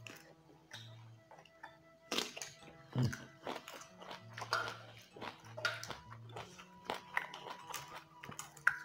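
Close-miked mukbang eating sounds: crunchy bites and wet chewing of raw vegetables and rice eaten by hand, in a string of sharp crackles, over quiet background music.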